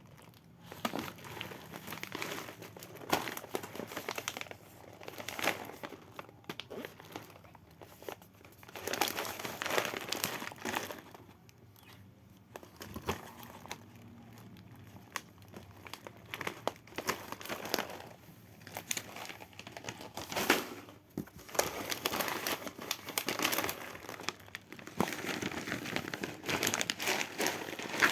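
Packaging being unwrapped by hand: irregular crinkling and rustling, with louder bursts in the second half.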